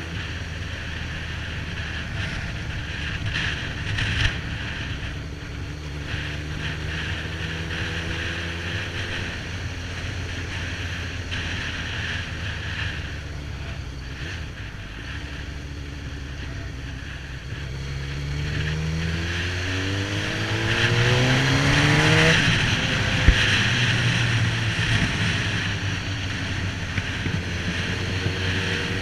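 Suzuki GSX-R1000 K8's inline-four engine running at road speed, with wind rushing over the microphone. About eighteen seconds in, the engine note rises steadily for a few seconds as the bike accelerates, then drops away again.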